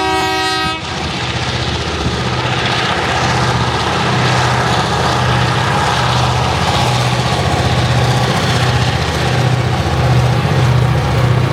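A short locomotive horn blast at the start, then the EMD 645 diesel prime movers of Tasrail 2050 class locomotives running steadily with a deep engine sound, growing slightly louder as the train approaches.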